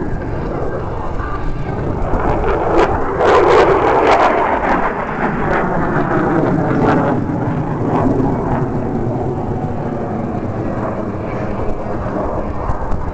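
F-16 fighter jet passing overhead at speed: a jet roar that builds to its loudest about three to four seconds in, then slowly fades into a long rumble.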